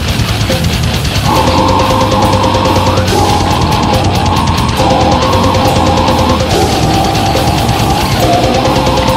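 Brutal death metal: distorted guitars holding riff notes that change every second or two over fast, dense drumming.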